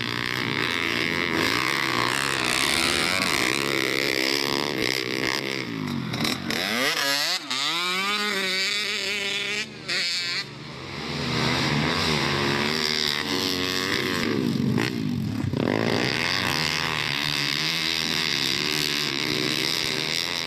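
Several pit bike engines racing on a dirt track, overlapping as the bikes pass, their pitch rising and falling with the throttle and gear changes.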